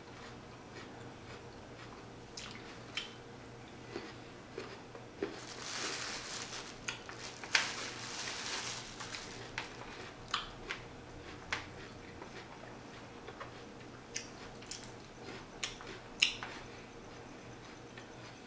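Close-miked chewing of crunchy raw jicama fries: wet crunches and sharp mouth clicks, denser for a few seconds in the middle.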